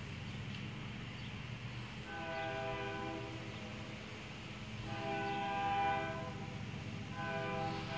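Louisiana & Delta Railroad locomotive 1504's air horn sounding three blasts of about a second each, the third starting near the end, over a steady low engine rumble. It is the horn warning for a grade crossing as the train approaches.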